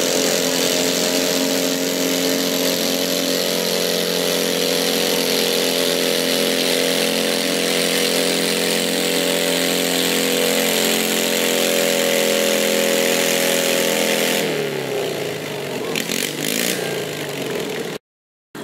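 Modified garden pulling tractor's engine running at high, steady revs under load as it pulls a weight-transfer sled. About fourteen seconds in, the revs drop and waver, and the sound cuts out abruptly near the end.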